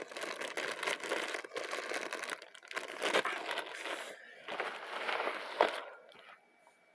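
Plastic snack wrappers crinkling and rustling as they are handled, with a sharp click about five and a half seconds in. The rustling stops near the end.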